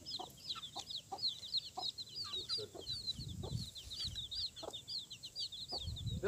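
Chickens calling: a steady stream of quick, high peeping chirps, several a second, with short lower clucking calls among them and a couple of dull low bumps.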